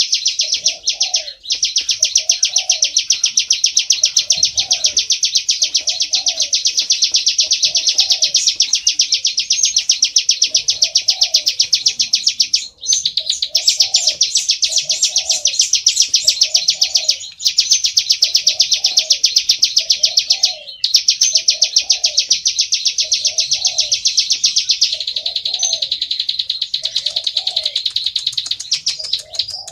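Plain prinia (ciblek sawah) song: a continuous, very rapid, high buzzing trill, broken by a few brief pauses. A softer, lower call repeats about once a second underneath.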